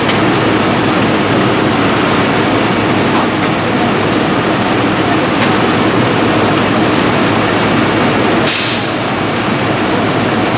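Steady, loud running of fire apparatus diesel engines and pumps supplying the hose lines, a constant even din with no rise or fall. A brief high hiss comes through about eight and a half seconds in.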